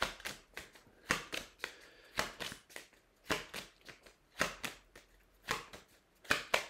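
A deck of oracle cards being shuffled by hand: a run of crisp card slaps and riffles, the strongest about once a second with softer ones in between.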